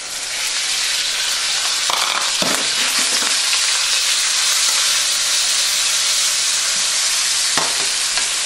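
Bacon pieces sizzling in hot olive oil in a wok on high heat, the hiss rising quickly as the bacon goes in and then holding steady. A few clinks of metal tongs against the wok come as the pieces are stirred, about two seconds in and near the end.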